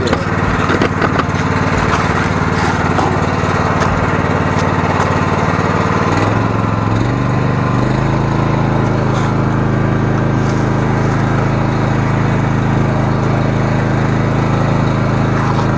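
The 13-horsepower engine of a high-pressure sewer jetter runs steadily while a jetting nozzle is tested. About halfway through, its speed steps up to a higher pitch and holds there.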